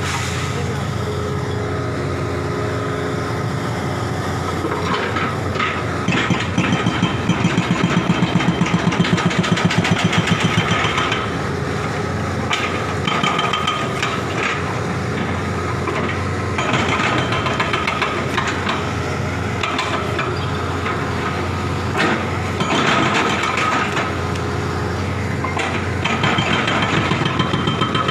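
Excavator's diesel engine running steadily while its hydraulic breaker hammers at a masonry wall in rapid bursts: a long spell about six seconds in that lasts some five seconds, then shorter spells later on.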